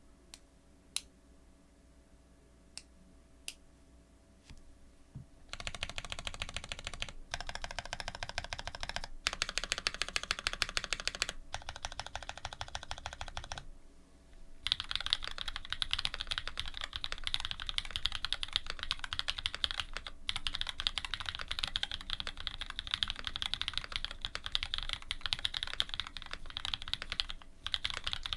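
Typing on a custom Dolphin linger re mechanical keyboard with lubed linear Cherry Black switches fitted with Cream stems, an aluminium plate and GMK keycaps. A few single keystrokes come first, then fast typing starts about five seconds in with a few short breaks, and it runs on without a break through the second half.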